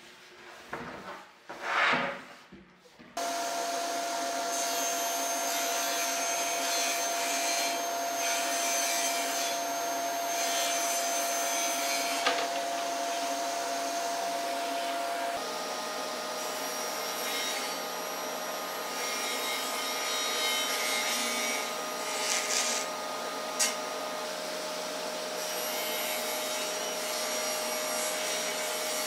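A few knocks from plywood sheets being handled. Then, about three seconds in, a table saw with dust extraction starts running steadily, a constant whine over a hum, as plywood is ripped on it.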